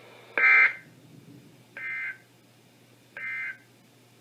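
NOAA Weather Radio SAME end-of-message data tones: three short two-pitch digital bursts about a second and a half apart, the first the loudest, signalling the end of the severe thunderstorm warning broadcast.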